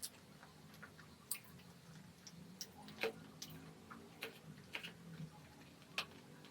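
Eating sounds: scattered light clicks and taps, irregular and unevenly spaced, the sharpest about three and six seconds in, over a faint low hum.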